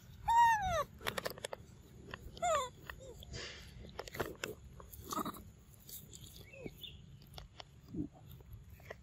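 Young macaque calling twice: a loud tonal coo that falls in pitch about half a second in, and a shorter one about two and a half seconds in. After the calls come light clicks and rustling.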